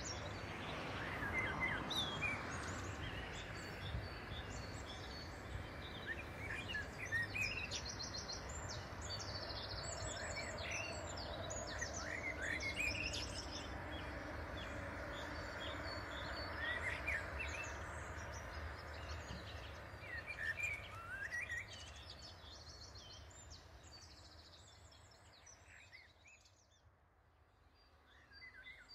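Electric multiple-unit passenger train running along the far riverbank, a steady distant rumble that fades away over the last several seconds as it draws off. Small birds chirp throughout.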